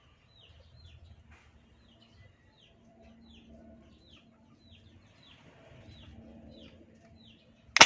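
Birds chirping, short falling notes repeating about twice a second, then a single sharp bang near the end as a homemade PVC toy rifle fires.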